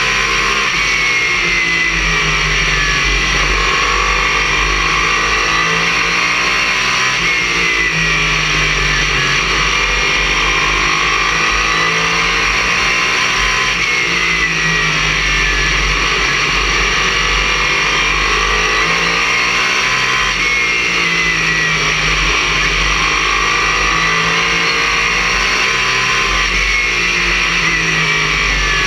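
Race car engine heard from inside the cockpit at full racing speed, loud over a constant roar of wind and chassis noise. Its pitch climbs and drops in a repeating cycle about every six to seven seconds as the car accelerates and lifts off lap after lap around the short oval.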